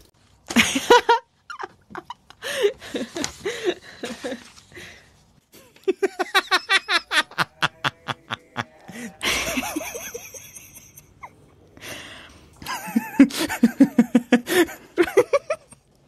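Several bouts of hearty laughter, each a quick run of 'ha-ha-ha' pulses. The longest run comes about six to nine seconds in, and another loud one near the end.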